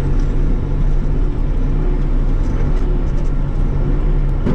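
Bobcat E42 mini excavator's diesel engine running steadily, heard from inside the cab, while the boom and arm are worked.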